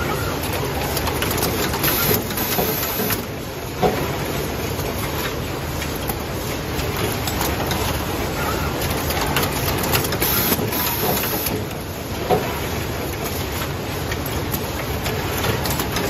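Automatic wire cutting, stripping, crimping and connector-housing assembly machine running: a steady mechanical clatter with sharp clicks and knocks as its heads and gripper work.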